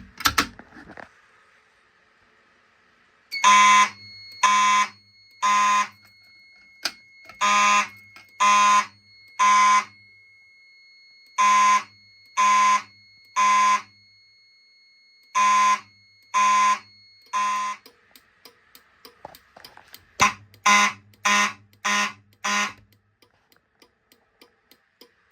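Fire alarm horn sounding the temporal-3 evacuation code: groups of three loud pulses, each group followed by a pause, repeated four times, with a faint steady high tone underneath. Near the end comes a quicker run of six shorter pulses.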